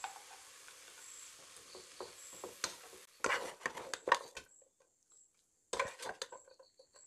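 Metal spoon knocking and scraping against a pot and a ceramic plate as noodles are served out, in two clusters of quick clinks a little past three seconds in and again near six seconds.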